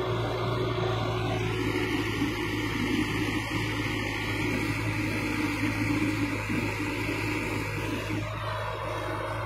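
Caterpillar 312B excavator's diesel engine running steadily with a constant low hum. A rushing hiss rises over it from about a second and a half in and eases off around eight seconds.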